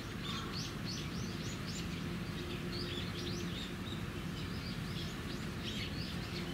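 Small birds chirping, many short high chirps a second, over a steady low background hum.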